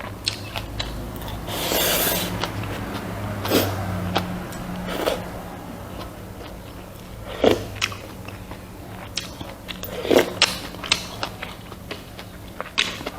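A person eating rice with pork soup close to the microphone: chewing and biting with scattered small clicks and a few louder noisy bursts, over a faint steady low hum.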